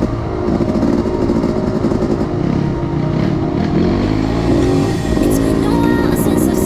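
Yamaha YZ250X two-stroke single-cylinder dirt bike engine running under load, its pitch rising and falling over and over as the throttle is worked.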